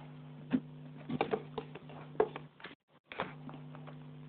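Scattered light knocks and clicks, as of objects being handled, over a steady low hum. The sound cuts out completely for a moment about two-thirds of the way through.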